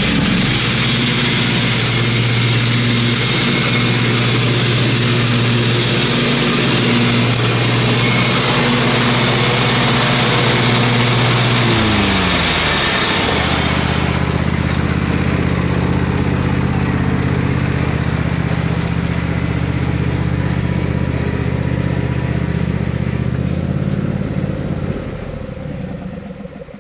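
John Deere riding lawn tractor's engine running steadily. About twelve seconds in, its note drops to a lower pitch and grows fuller as the tractor comes close, then fades out near the end as it drives off.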